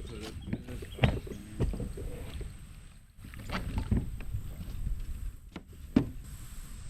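Kayak handling noise: irregular bumps and rumbles on the boat, with several sharp knocks.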